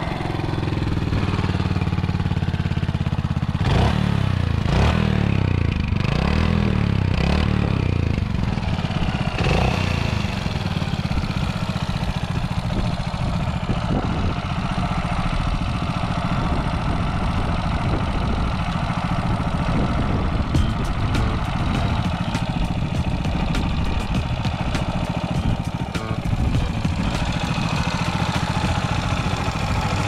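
Brixton Glanville/Felsberg 250's air-cooled single-cylinder engine running with a stovepipe-like exhaust note, blipped up and down several times in the first ten seconds or so, then settling to a steady idle.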